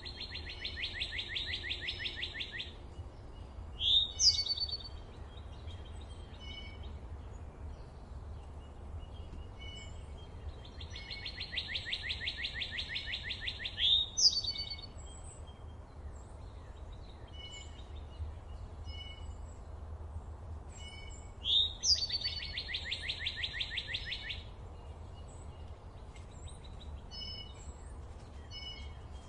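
Forest birdsong: a bird repeats a fast, even trill of about two and a half seconds three times, each trill paired with a loud rising note, while other birds give short, high chirps throughout. A low, steady rumble runs underneath.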